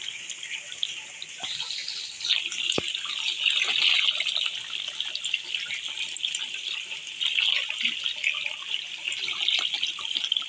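Water splashing and trickling as hands scoop up a crowded mass of tilapia fry in shallow water and let them spill back, a continuous watery hiss full of small splashes and flicks, with one sharp tick about three seconds in.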